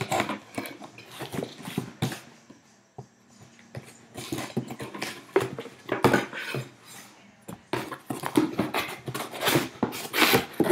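Cardboard shipping boxes being handled and opened by hand: an irregular run of scrapes, rips and knocks of cardboard.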